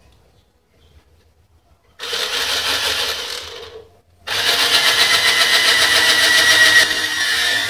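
Cordless drill drilling a hole into a thin wooden board: the motor starts about two seconds in, runs and slows, stops for a moment, then runs again longer and louder, with a rising whine in the second run.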